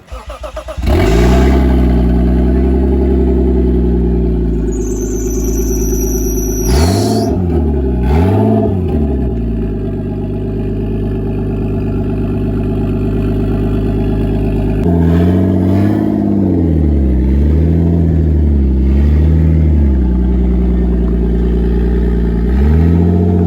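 Lexus IS straight-six engine starting up, then running and revved in several blips. There is a brief high-pitched squeal about five seconds in.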